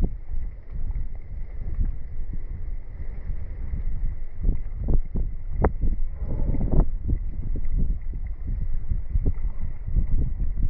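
Storm wind buffeting the microphone: a low, rumbling rush that surges unevenly in gusts.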